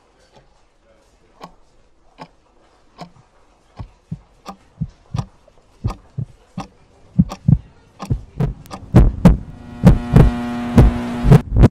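Rhythmic low thumps, faint and slow at first, growing louder and faster. Near the end a loud, buzzing held drone joins them.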